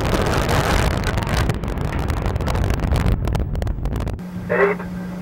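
Loud, steady rushing noise with crackles: wind buffeting an outdoor video camera's microphone. About four seconds in it cuts off abruptly to a steady low hum, and a voice begins near the end.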